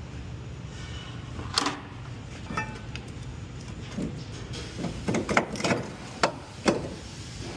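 Irregular metal knocks and clinks of hand tools working on a car's brake assembly as a stubborn part is worked loose, a few of them sharper, with a brief metallic ring.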